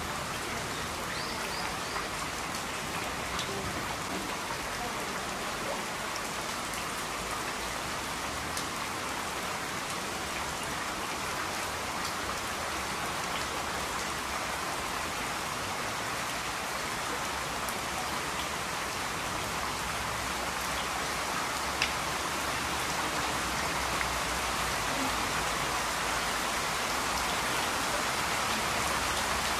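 Steady rain falling on a wet, puddled walkway and foliage, with scattered single drops ticking; it grows slightly heavier over the last several seconds.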